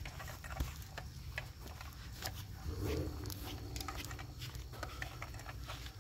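Irregular footsteps through grass and light handling clicks on a handheld phone, over a low wind rumble on the microphone. A brief low-pitched sound comes about three seconds in.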